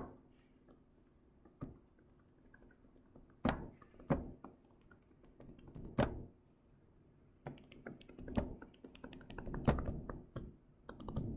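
Scattered sharp taps and clicks of a stylus on a tablet while writing by hand, a few seconds apart at first and coming thicker in the last few seconds.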